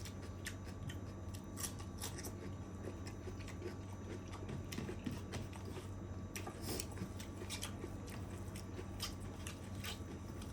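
A person chewing chicken curry and rice close to the microphone, with many small, irregular wet mouth clicks and smacks. A steady low hum runs underneath.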